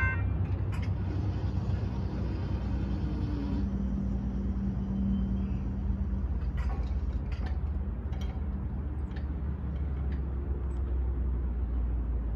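Low steady rumble of road vehicles at a railroad crossing, with a steady low hum for a few seconds in the first half and a few faint clicks scattered through.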